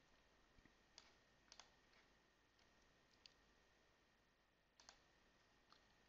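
Faint computer mouse clicks, about six of them at irregular intervals, over near-silent room tone.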